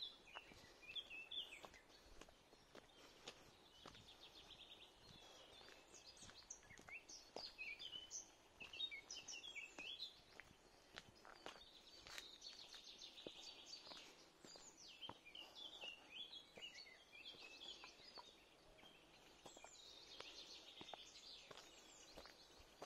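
Faint songbirds singing in woodland: many short chirps and whistles from several birds, with rapid trills repeating a few times.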